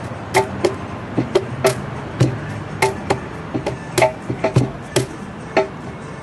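Cajón played by hand: a rhythmic pattern of sharp slaps mixed with deeper bass strokes on the wooden box.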